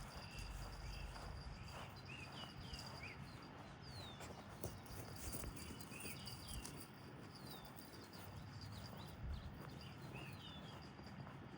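Faint outdoor ambience: a bird's short, downward-sweeping chirps repeat in little clusters over a steady high insect buzz, with scattered faint clicks.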